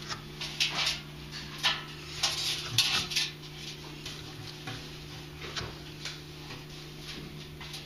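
Ferrets scuffling inside a washing machine's metal drum: claws scrabbling and small knocks on the metal in short, sharp bursts, busiest in the first three seconds and sparser after. A steady low hum runs underneath.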